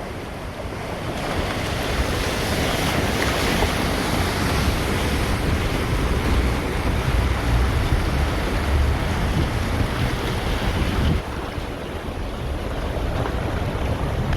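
A river in flood rushing loudly, with wind buffeting the microphone. About eleven seconds in, the hiss thins and it gets a little quieter.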